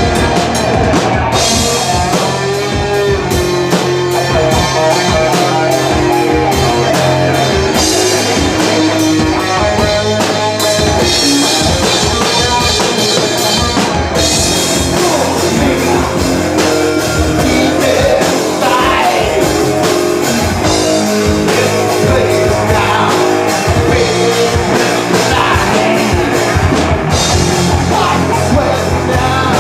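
Rock band playing live at full volume: drum kit and guitar under a singing voice.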